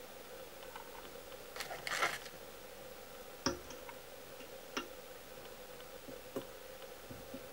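Fly-tying handling at the vise: a brief rustle and scrape of thread and hackle, then a few separate light clicks of tools and fingers at the hook. A faint steady hum sits underneath.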